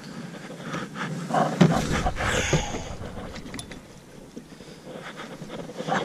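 Knocks, bumps and scraping as a person climbs into a plastic fishing kayak and settles into the seat, loudest about two seconds in.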